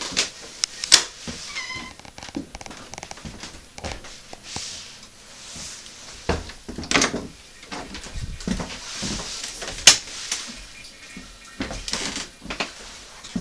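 Doors being opened and handled through a house: scattered knocks and clicks, the sharpest about a second in and near ten seconds in, with a short high squeak about two seconds in.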